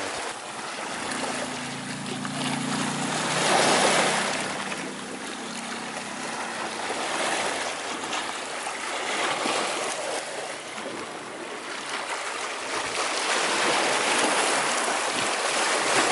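Sea surf breaking and washing over rocks and pebbles at the water's edge, swelling and easing in waves, loudest about four seconds in and again near the end.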